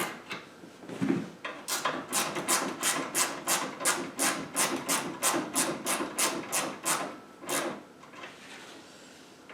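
Fine-tooth Wera ratchet worked back and forth, its pawl rasping over the teeth in short strokes about three a second as it backs out a treadmill's belt-tension bolt. The strokes stop near the end.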